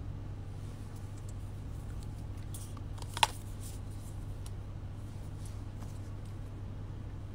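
Close handling noises: faint rustles and small ticks, with one sharp click a little over three seconds in, over a steady low hum.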